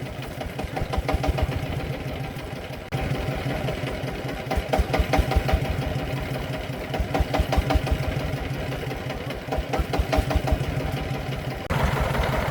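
Single-cylinder diesel engine of a công nông farm truck running with a steady, even chug. The level jumps abruptly about three seconds in and again near the end.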